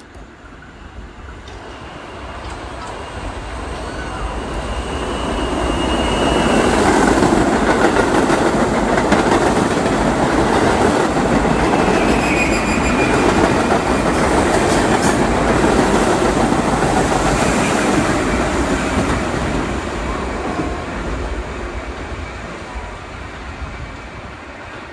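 R68 subway train running through on the express track without stopping. The rumble of its wheels on the rails swells as it nears, holds loud for about ten seconds as the cars go by, then fades. Brief high wheel squeals come about two seconds in and again near the middle.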